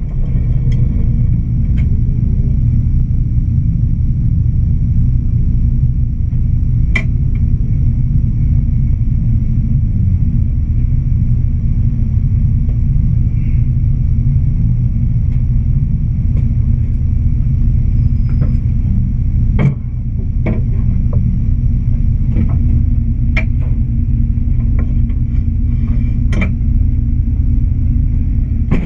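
Engine idling inside a stripped-out race car's cabin, heard as a steady low rumble. A handful of sharp clicks and knocks sound over it as the driver takes off his helmet and climbs out.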